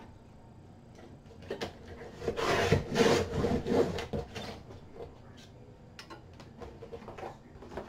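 Paper trimmer slicing a sliver off a craft piece: a rasping scrape of about three seconds as the blade is drawn along, with light clicks and taps of handling before and after.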